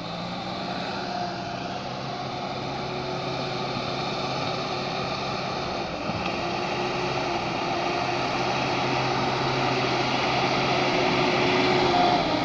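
JCB backhoe loader's diesel engine running steadily, slowly growing louder.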